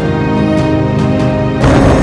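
Background music with held chords; about one and a half seconds in it cuts abruptly to a loud, steady, noisy din of a running helicopter.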